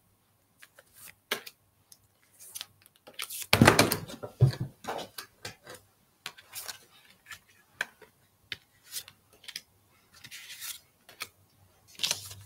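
Oracle cards being handled and flipped through: scattered light clicks and taps, with a louder rustle and thump about three and a half seconds in.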